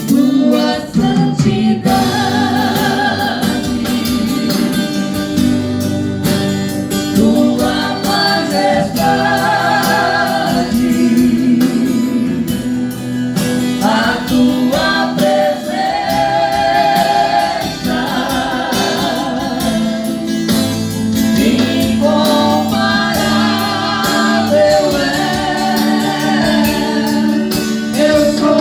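A gospel group singing with band accompaniment over a steady beat, several voices together.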